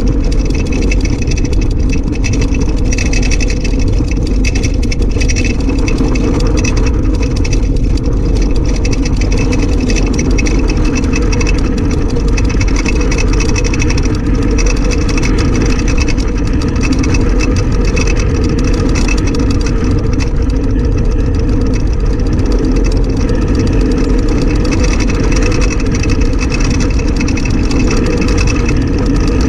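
Soapbox car coasting fast downhill: a steady, loud rumble of its wheels rolling on tarmac, mixed with rushing wind, with no engine.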